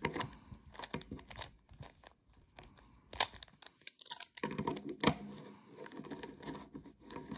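Plastic speed cube being turned through an algorithm: quick, irregular clicking and clacking of the layers, with a few sharper clacks near the start and about three and five seconds in.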